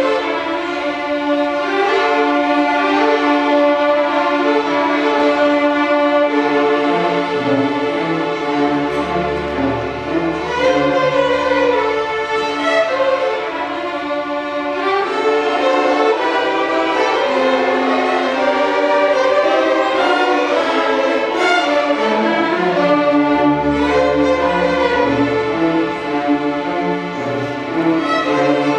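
String orchestra playing: violins, violas, cellos and double basses bowing together, with deeper bass notes joining at times.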